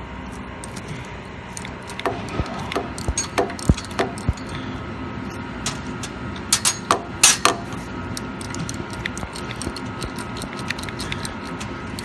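Socket ratchet wrench clicking, with sharp irregular metallic clicks and clinks, as the tensioner bolts of a Zamboni's horizontal auger chain are tightened to take up slack in the chain.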